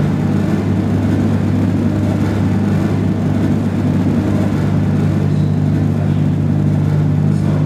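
Steady electronic drone from a Max patch of feedback delay loops that recycle sound taken in through the microphone. It has a strong low hum with grainy noise above it, and the low hum thickens slightly about halfway through.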